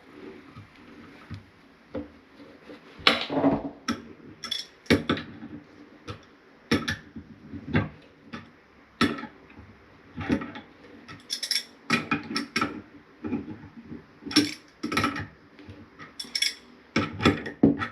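Irregular clinks and knocks of hard metal and ceramic: tools and toilet parts being handled during a tank-gasket repair.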